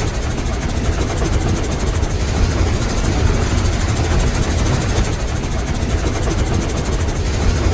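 Steam locomotive chugging at a steady pace: a rapid, even run of airy exhaust chuffs over a deep rumble, from the 'Skywalker' steam train sound effect.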